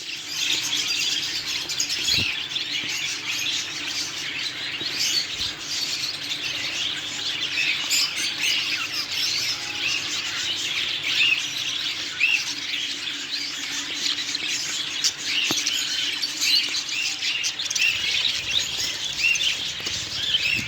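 Many small caged birds chirping and calling together in a dense, continuous chatter of short, high chirps.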